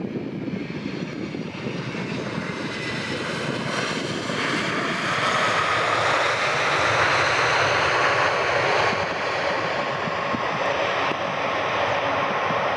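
Boeing 767 airliner's twin jet engines during the landing roll just after touchdown: a continuous rushing noise with a steady whine, swelling about four seconds in and easing a little near the end.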